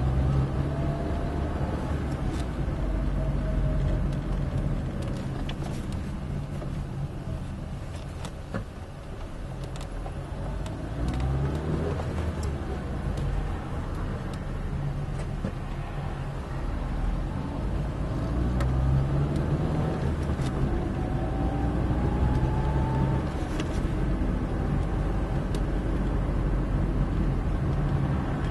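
Car engine and road noise heard from inside the cabin, the engine note rising several times as the car pulls away and accelerates through the gears, with a quieter lull about eight seconds in.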